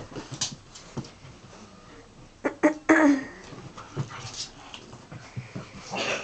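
Dog vocalizing during play: a couple of short yelps about two and a half seconds in, then a longer whimpering cry that falls in pitch.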